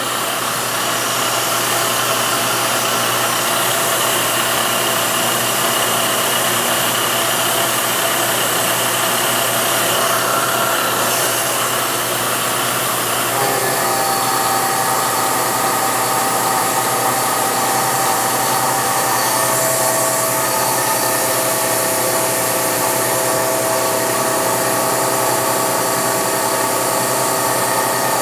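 Milling machine running steadily while taking a cut of about 50 thousandths off a steel vise jaw. Its steady tones change pitch about halfway through.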